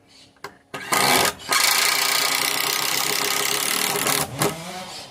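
A power tool runs: a short burst about a second in, a brief pause, then a steady run of about three seconds that cuts off suddenly.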